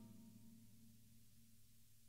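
Near silence: the last faint ring of the Sonor Select Force 14x6.5 snare drum dying away between passages, a low hum of tones fading out.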